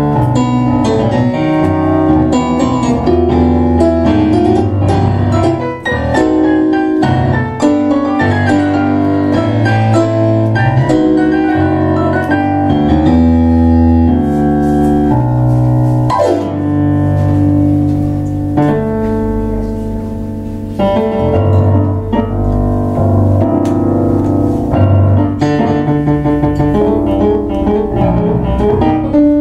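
Two digital stage pianos, one a Kawai MP6, playing a tango as a duet, thinning out for a few seconds in the middle.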